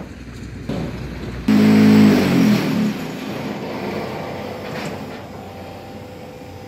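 A motor vehicle passing close by. It comes in suddenly about a second and a half in, and its engine note falls as it goes past, fading into a steady background hum.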